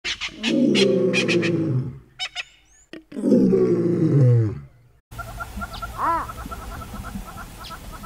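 Two loud, deep animal roars, each about a second and a half long with a falling pitch. About five seconds in it cuts suddenly to a bush ambience of rapid insect chirping, with a single rising-and-falling call about six seconds in.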